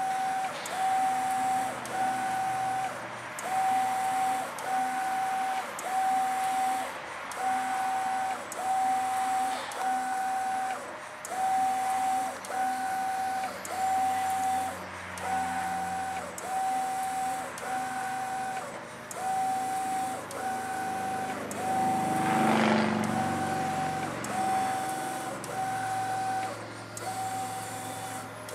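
Mimaki GP-604 direct-to-garment printer printing, its print-head carriage sweeping back and forth across a t-shirt. The carriage motor gives a steady whine that breaks off briefly at the end of each pass, about once a second. A brief, louder noise comes a little past three quarters of the way through.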